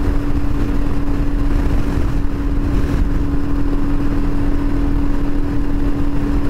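Royal Enfield Himalayan's single-cylinder engine running under load at a steady speed of about 65 mph while climbing a hill, with a steady hum and a dense low rumble of wind over the microphone.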